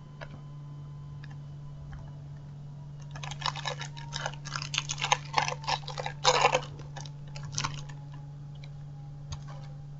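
Foil wrapper of a football trading-card packet crinkling and crackling in the hands as it is opened, in a dense run of sharp crackles from about three seconds in for several seconds, with a few more later. A steady low hum runs underneath.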